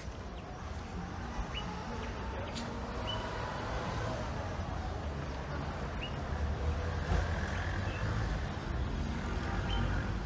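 Steady low rumble of road traffic, with faint short high chirps every second or two.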